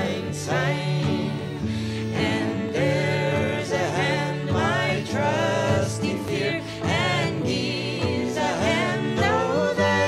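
Background music: a song with a sung melody over steady accompaniment.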